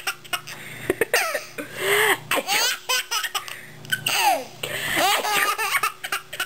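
An 8-month-old baby laughing hard in a string of short bursts, set off by a sneeze.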